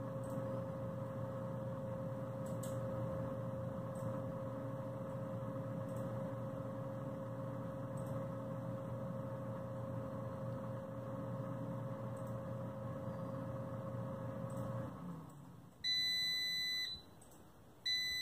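PowerAirFryer Oven running with a steady hum from its convection fan and a faint tick every couple of seconds. About 15 seconds in the fan stops, and two long electronic beeps follow, signalling that the timer has run out and the cooking cycle is over.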